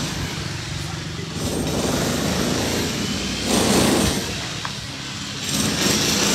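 Outdoor street noise around a group on foot: a steady rush of background noise, with two louder swells of rushing noise about three and a half and five and a half seconds in.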